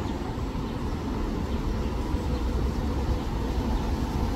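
Strong wind blowing across the microphone: a steady low rumble.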